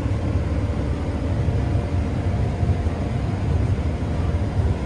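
New Holland combine harvester running while cutting wheat: a steady low engine rumble with no distinct changes.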